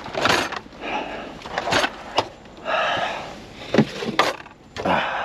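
Rustling and handling of belongings, broken by several sharp knocks and clicks.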